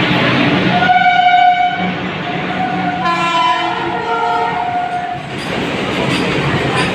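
Goods train hauled by two WAG-5 electric locomotives running past with a steady rumble and rattle of wheels on track. The horn sounds twice: a short blast about a second in, then a longer blast from about three to five seconds.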